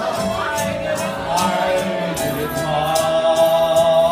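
A man singing into a microphone over a backing track with a steady beat, ending on a long held, wavering note.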